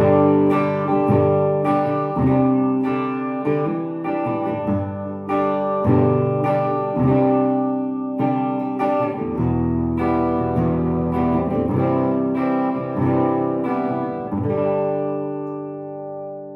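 1960s Höfner Verithin thin hollow-body electric guitar being played clean: a run of picked and strummed chords and notes. Near the end a last chord is left ringing out and fading.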